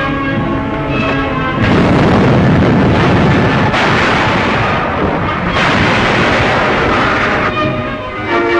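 Orchestral newsreel music, then a loud, dense rushing noise for about six seconds that starts and changes abruptly in sections. Music lines return near the end.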